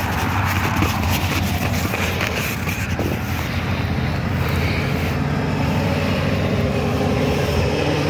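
Wind buffeting the phone's microphone: a steady low rumble with a rushing haze above it.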